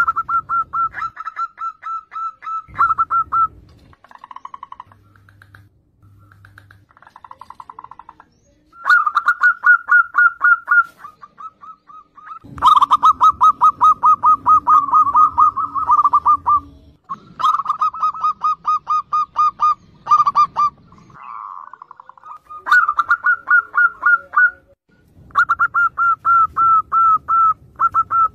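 Zebra dove (perkutut) in full song: phrase after phrase of fast, stuttering staccato coos with short pauses between them. Some phrases are softer and lower, and the longest, loudest run comes about midway.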